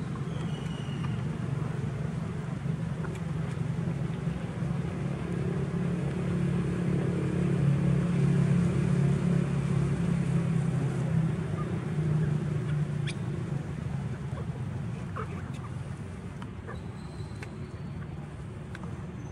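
Low engine hum of a motor vehicle, swelling louder through the middle and then slowly fading as it passes.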